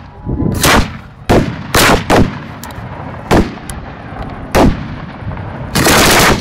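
Aerial firework shells going off at very close range: a string of about seven loud, sharp bangs spaced irregularly, half a second to a second apart, with a couple of faint cracks between them. The last bang, near the end, is drawn out to about half a second.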